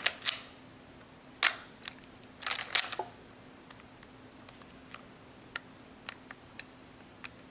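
Leica M6 mechanical shutter and film-advance clicks: a few sharp clicks, then a quick cluster of ratcheting clicks about two and a half seconds in, followed by a string of faint light ticks.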